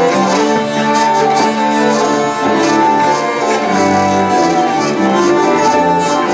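Folk dance music on hurdy-gurdy: a steady drone held under a moving melody, with a regular beat.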